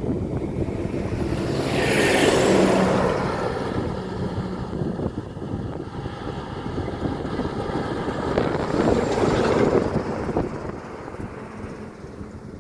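Heavy goods lorries driving past on a highway, their engines and tyres swelling as each one passes, once about two seconds in and again about nine seconds in, with wind buffeting the microphone.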